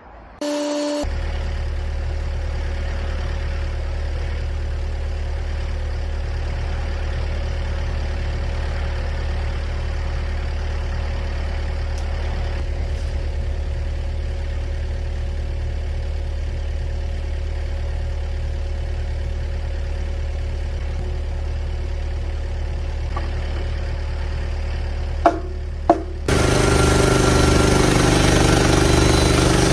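Portable sawmill's engine kicks in and runs at a steady idle. About 25 seconds in come two sharp knocks, and then it runs louder, as it revs up for a cut.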